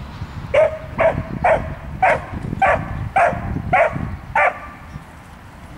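A dog giving eight short, evenly spaced barks, about two a second, which stop a little over a second before the end.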